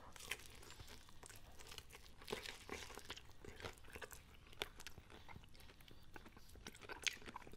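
Crispy fried chicken being bitten and chewed: quiet, irregular crunches and crackles of the fried breading.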